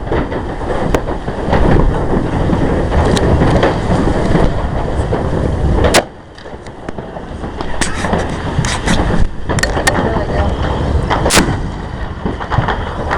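Fireworks going off in quick succession: a dense run of booms and crackling, with a sharp bang about six seconds in. After the bang it briefly goes quieter, then builds again.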